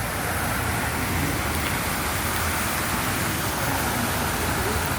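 Heavy rain pouring down on a flooded street, a steady hiss with a low rumble underneath.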